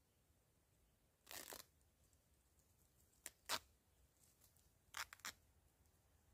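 Plush toy's fabric and seams ripping by hand as its fibre stuffing is torn out: a longer rip about a second in, then short sharp rips, two together and later three in quick succession.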